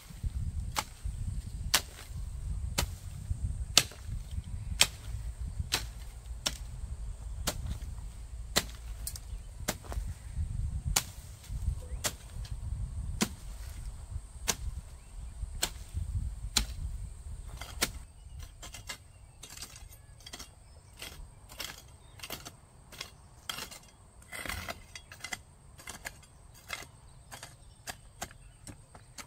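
Sharp chopping blows into wood, about one a second, over a low rumble. About two-thirds of the way in the rumble drops away and the blows become lighter and quicker.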